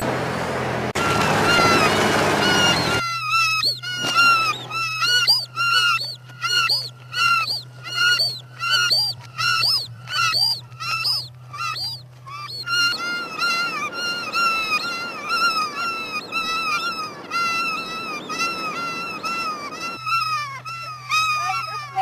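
Bird squawk sound effect, repeated in an even string of short rise-and-fall calls about two a second, starting about three seconds in, over a steady low hum. Around the middle a hiss comes in beneath the calls for several seconds.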